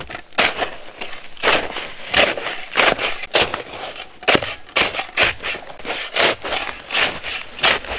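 Metal-bladed snow shovel chopping and scraping into hard-packed, crusted snow to loosen it: a dozen or so crunching strokes, about one or two a second.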